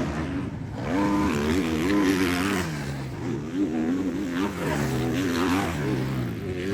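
Motocross bike engines racing on the track, their pitch rising and falling over and over as the riders work the throttle and shift gears.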